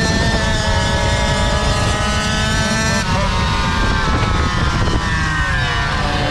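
Small two-stroke engines of GoPed GoQuads running at speed with a high, buzzing whine. The pitch drops about halfway through and falls again near the end as the throttle comes off.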